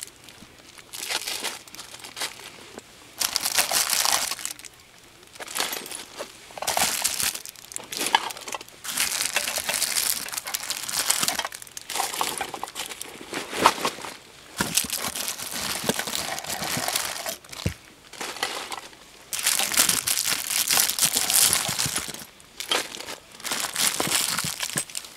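Clear plastic bags of small camping gear crinkling and rustling in irregular bursts as they are picked up and shifted about by hand.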